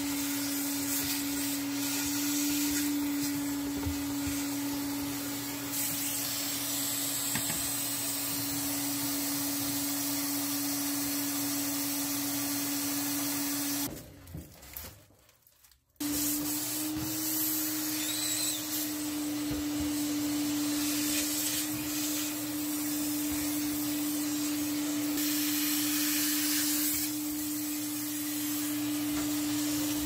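Vacuum cleaner running steadily with a constant whine, sucking lint out of a dryer vent duct and the dryer's exhaust outlet through its hose. It cuts out for about two seconds near the middle, then starts again with its pitch rising briefly.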